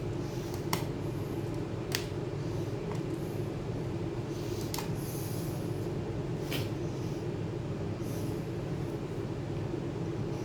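Steady low hum with four light, sharp clicks spread through it.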